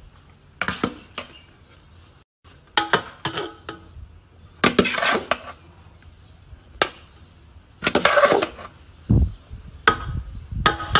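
A metal spoon or ladle scraping and knocking against a metal cooking pot as rice is stirred and scooped, in a series of short irregular scrapes. A couple of dull thumps come near the end.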